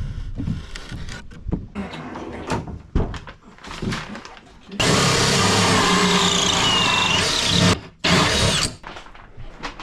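Power drill cutting with a hole saw: a loud, steady run of about three seconds with a high squeal over a low hum, a brief stop, then a short second burst. Scattered knocks come before it.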